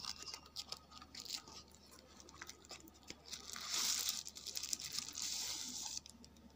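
Handling noise of a cardboard box being opened: small clicks and scrapes of the flaps, then a steady rustling hiss from about three and a half seconds in as the plastic-wrapped tripod slides out of the box, stopping abruptly about six seconds in.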